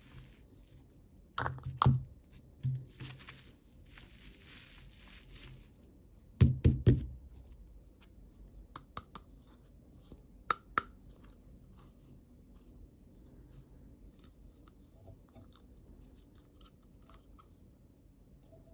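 Hands unboxing small plastic toys: scattered knocks and clicks of plastic pieces and packaging being handled, with light rustling in the first few seconds and the loudest cluster of knocks about six and a half seconds in.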